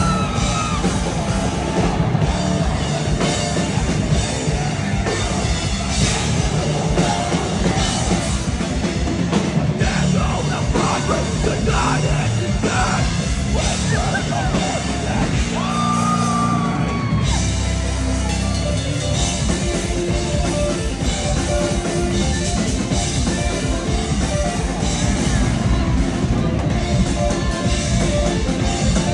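Live rock band playing loud: electric guitar and drum kit, with a vocalist yelling and singing into a microphone.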